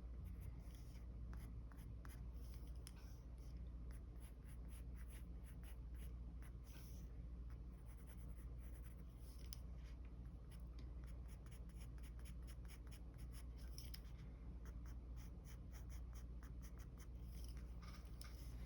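Mechanical pencil scratching on paper in many short sketching strokes, some in quick runs, over a steady low hum.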